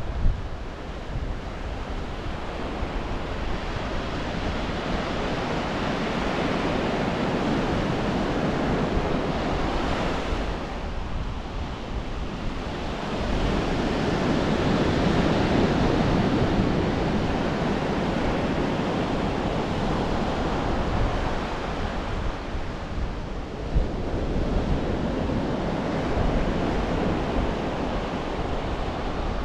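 Ocean surf breaking and washing on a beach: a steady rush of water that swells and eases every several seconds, loudest in the middle, with some wind on the microphone.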